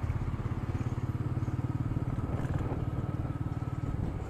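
Royal Enfield Meteor 350's single-cylinder engine running steadily as the motorcycle is ridden, a rapid, even thump of exhaust pulses. It is heard through an action camera's built-in microphone.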